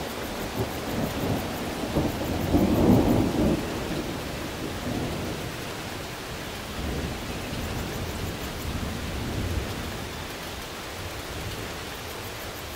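Steady rain with low rolling thunder. One rumble swells to its loudest about three seconds in and fades, and fainter rumbles come later.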